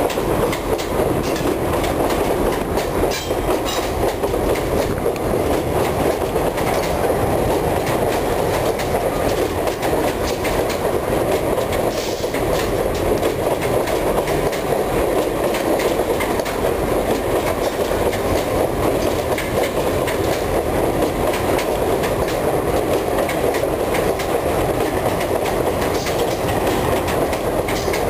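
A long train of empty mineral hopper wagons rolling past at close range: a steady rolling rumble of steel wheels on rail, with a few clicks as wheels cross rail joints.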